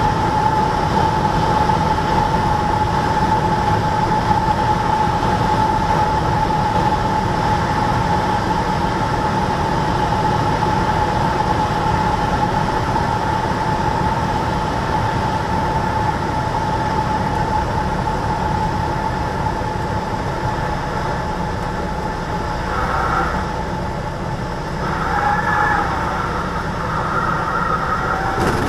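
Cessna 172's engine and propeller running steadily, heard from inside the cabin as a constant drone with a steady whine over it. Near the end a higher tone comes and goes three times.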